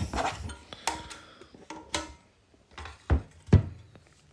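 Several sharp clicks and knocks of small hand tools against the brittle plastic housing and circuit board of a Nissan Skyline R34 GT-R multi-function display unit being taken apart. The two loudest knocks come about three and three and a half seconds in.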